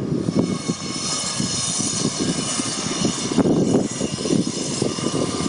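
Wind buffeting the microphone in gusts, over a faint steady high-pitched whine.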